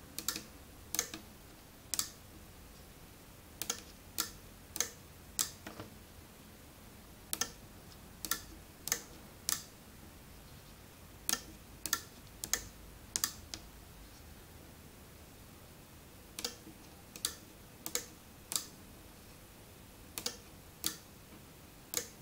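Small PCB relays clicking sharply as they switch on and off under a PIC microcontroller's control: about two dozen single clicks at uneven gaps, some in quick pairs.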